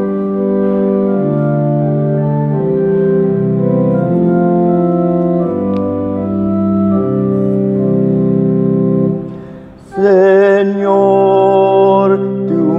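An organ plays slow, sustained chords as the introduction to a responsorial psalm. About nine seconds in, it fades briefly, and then a male cantor begins singing the psalm response with vibrato over the organ.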